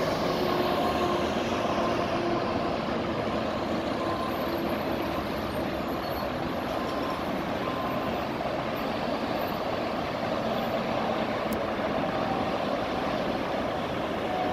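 Steady rush of freeway traffic, with faint engine hums among the tyre noise.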